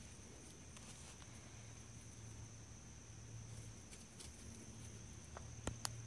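Faint insects making a steady high-pitched drone, with a few sharp clicks near the end.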